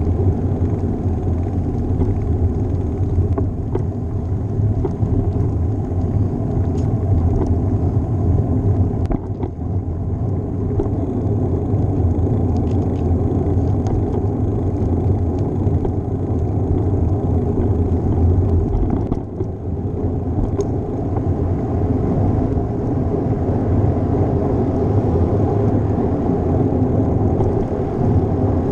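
Steady low rumble of wind and road noise on a GoPro action camera's microphone while riding a bicycle, with a few faint ticks, and a brief drop in level about two-thirds of the way through.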